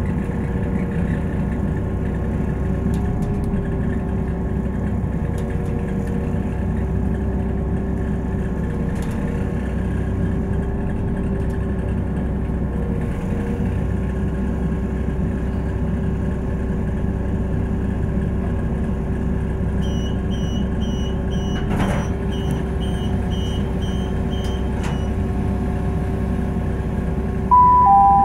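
Class 172 DMU's underfloor diesel engine running at a steady idle, heard from inside the carriage as the train stands at a station platform. A few seconds of rapid high electronic beeping come about two-thirds of the way in, and a loud two-note falling chime sounds near the end.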